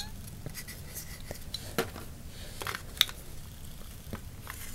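AAA batteries being pressed into the plastic battery compartment of a toy lightsaber hilt: quiet handling and scraping with a few sharp clicks, the two loudest about a second apart near the middle.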